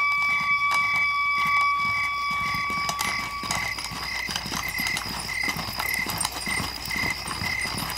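Footsteps of a column of men walking on a dirt path, under a short high chirp that repeats about twice a second. A steady high tone, likely the tail of the score, fades out about three and a half seconds in.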